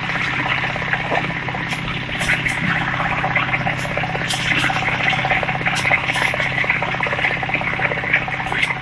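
Portable drum concrete mixer's engine running with a steady hum. Frequent short scrapes and clinks of a hand tool working wet concrete sound over it.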